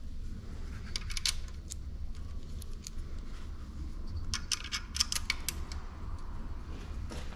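Small metal clinks and taps as steel bolts and a camshaft locking tool are handled and fitted to an engine's cylinder head, in a short cluster about a second in and a longer run of clicks in the middle, over a steady low hum.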